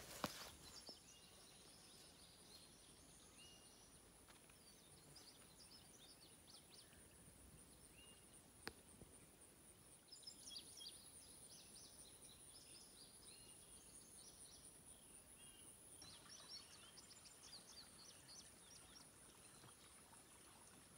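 Faint outdoor ambience: birds chirping in short phrases over a steady high-pitched whine, with a couple of sharp clicks.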